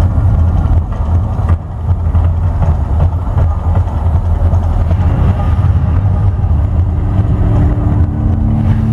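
Loud, deep rumble of the Mirage volcano show, the eruption effects booming over its loudspeakers as the fire jets burn. A few steady held tones join in during the last couple of seconds.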